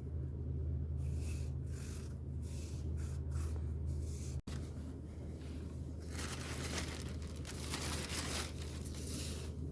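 Car engine idling steadily, with irregular scraping, rustling noises over it, heaviest in the second half.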